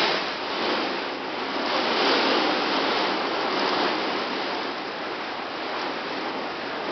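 Torrential rain and gusting wind of a severe thunderstorm, a steady rushing noise that swells about one and two seconds in and eases a little later.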